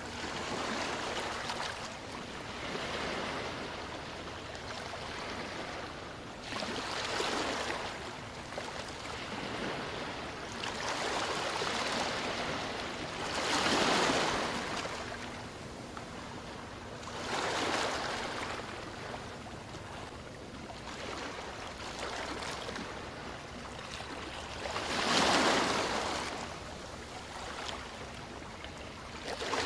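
Ocean waves washing ashore, a rushing hiss that swells and fades every few seconds, with two louder swells midway and near the end.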